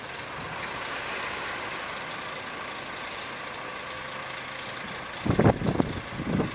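A city bus's diesel engine running steadily through the snowstorm. About five seconds in, several loud, irregular rumbles break over it.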